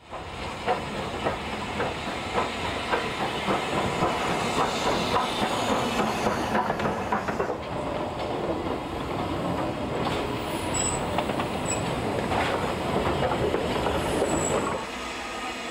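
Steam tank locomotive running slowly over the rails, with a dense rattle of clicks from the wheels and running gear. Brief high-pitched wheel squeals come about two-thirds of the way through and again near the end.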